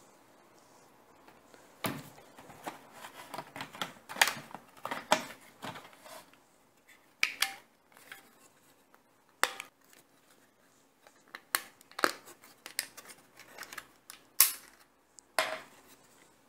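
Plastic housing parts of a cordless vacuum cleaner and its battery pack being handled and fitted together: irregular clicks, taps and light knocks, starting about two seconds in, busiest over the next few seconds and then more scattered.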